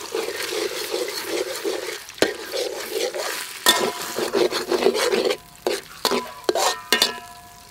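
Duck eggs sizzling in hot oil in a metal wok while a metal spatula scrapes and stirs them to scramble them, with sharp clanks of the spatula against the wok. The sizzling thins out after about five seconds, leaving a few separate scrapes and taps.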